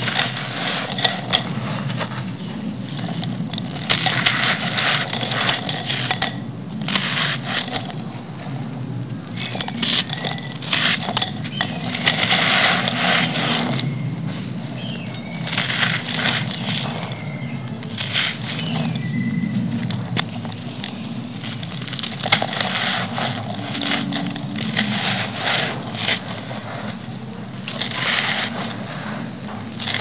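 Dry, gritty chunks crushed in the hand, the grains and small pieces pouring and pattering into a terracotta pot. It comes in repeated crunchy, crackling bouts a few seconds long, each handful followed by a short lull.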